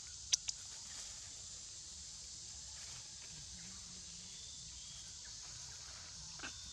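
A young macaque moving through leafy undergrowth, with two sharp clicks about a third of a second in and another small one near the end, over a steady high hiss.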